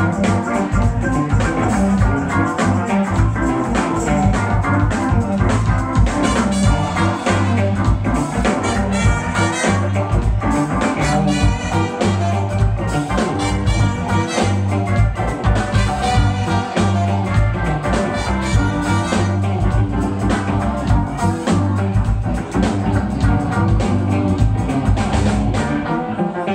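Live funk band playing a steady, driving groove, with drums and a strong bass line.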